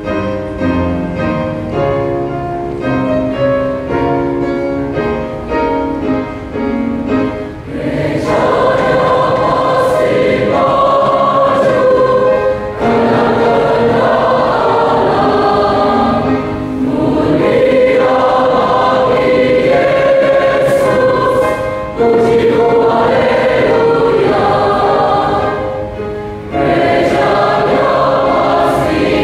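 A large mixed choir of young men and women singing a church hymn medley. It opens with a run of short, separate notes, then the full choir comes in about eight seconds in with sustained chords, breaking briefly between phrases a few times.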